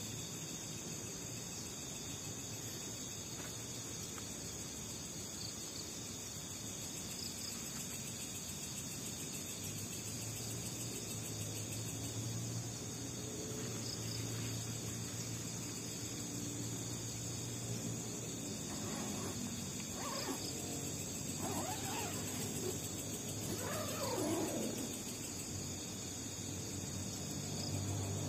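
Steady, high-pitched night insect chorus. About two-thirds of the way through, it is joined by a handful of falling, wavering calls from an unseen animal.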